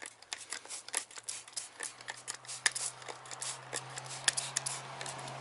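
Trigger spray bottle squirting degreaser onto the engine bay: quick, irregular short hissing squirts, several a second, over a faint steady low hum.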